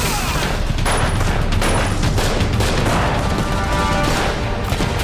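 Battle sound effects: a dense, continuous crackle of rifle and machine-gun fire with blasts of explosions, under dramatic background music.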